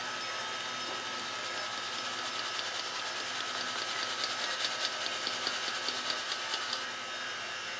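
Metal drum sieve being shaken to sift flour, its rim rattling rapidly from about two and a half seconds in until near the end, over a steady mechanical hum.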